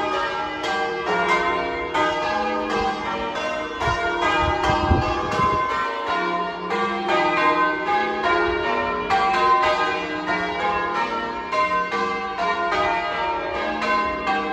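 Church bells being change-rung: an even, unbroken succession of strikes, one bell after another, each ringing on over the next. A brief low rumble sounds underneath about four seconds in.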